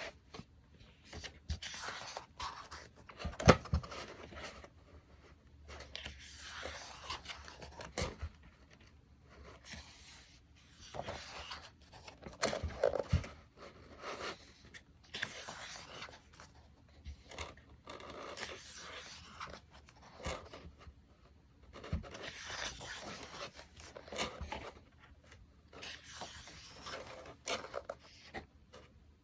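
Individually wrapped merchandise being unwrapped and handled: plastic packaging rustles, scrapes and tears in irregular spurts, with a few sharp knocks as items are set down.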